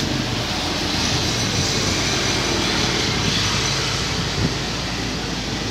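Street traffic: a steady wash of engine and tyre noise from cars and motorbikes passing on the road.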